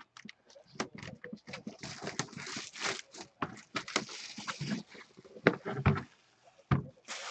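Hands handling a cardboard trading-card box (2016 Panini Flawless Football): rustling and scraping against the box's surface, then a few knocks near the end as it is set down on the table.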